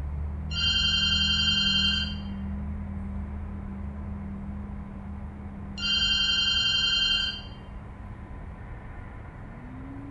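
A telephone ringing twice, each ring about a second and a half long and about five seconds apart, over a low steady hum.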